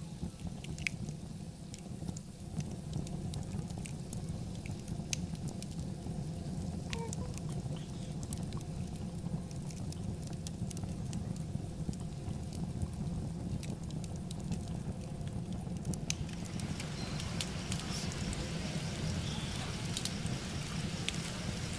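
Marinated chicken frying in a pan over a wood fire: scattered crackles and pops over a low steady rumble, with a louder sizzling hiss setting in about three-quarters of the way through.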